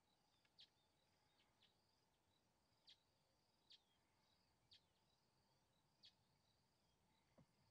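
Very faint grassland ambience: insects chirping in a steady, high, pulsing trill, with short sharp chirps about once a second.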